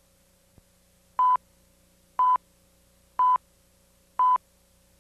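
Videotape leader countdown beeps: four short, identical steady-pitched beeps, one a second, over a faint steady hum.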